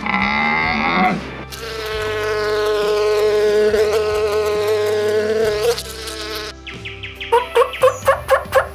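A honeybee buzzing in one long steady hum, after a short animal call in the first second. About seven seconds in, a tom turkey starts a run of quick, evenly spaced calls.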